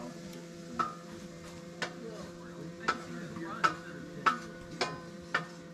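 A metal utensil clinking against a cooking pan while breakfast hash browns are stirred: about seven sharp clinks, coming closer together toward the end, over a steady low hum.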